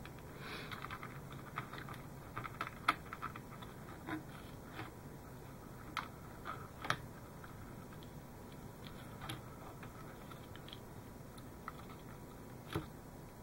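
Faint, irregular small clicks and rustles of hands handling thin wires, an LED and connectors inside a plastic model kit's hull, tugging at the wiring to find a loose LED connection.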